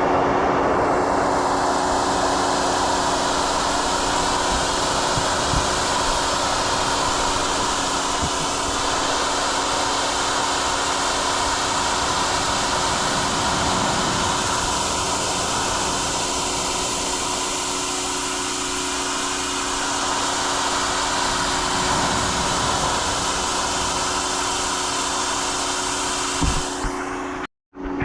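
A 4,000 psi electric pressure washer running, a steady motor hum under the hiss of the water jet spraying a propane tank. The sound cuts out briefly near the end.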